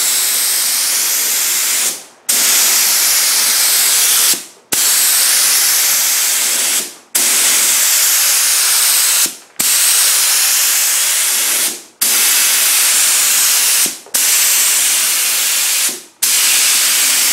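DeVilbiss FLG4 gravity-feed spray gun hissing as it sprays clear coat in repeated passes. The trigger is held for about two seconds per pass, then briefly released, eight times over.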